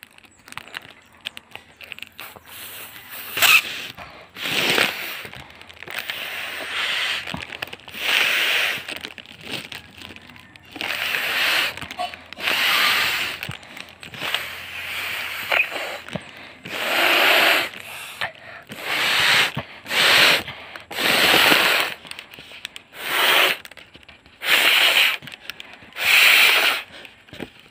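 A foil balloon being blown up by mouth: a long series of breath puffs, each about a second long with short pauses between, coming more quickly in the second half.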